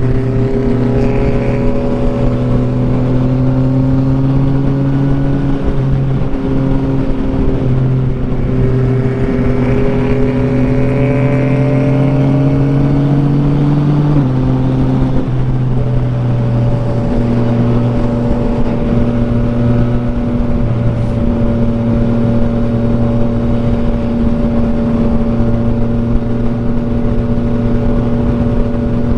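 Yamaha XSR900's inline three-cylinder engine pulling at highway speed, heard from the rider's position over steady wind rush. Its note climbs slowly, drops in pitch about halfway through, then holds steady.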